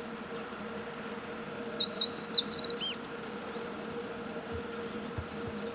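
Meadow bunting singing: a quick, varied phrase of high notes about two seconds in, then a shorter, higher run of notes near the end. A steady low hum runs underneath.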